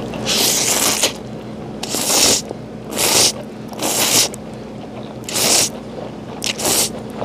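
A man slurping instant ramen noodles: about seven sucking slurps, roughly one a second, the last two close together.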